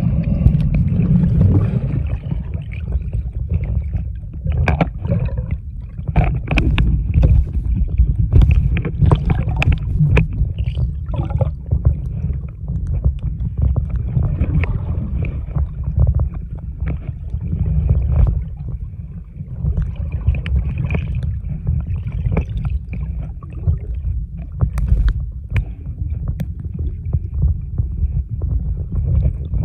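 Muffled underwater sound picked up by a camera below the surface: a constant low rumble of water moving around the camera, with frequent small clicks and crackles and a faint steady high whine.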